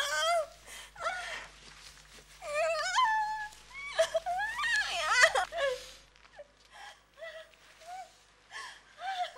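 A woman's wordless voice: long, wavering cries for the first six seconds, then short, fainter ones.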